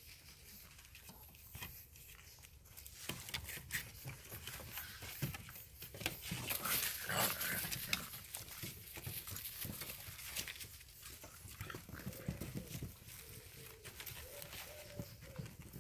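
Shar-pei puppies playing and wrestling: paws scrabbling and claws clicking on plywood and asphalt, with small puppy vocal sounds. There is a louder scuffle about seven seconds in and faint wavering whines near the end.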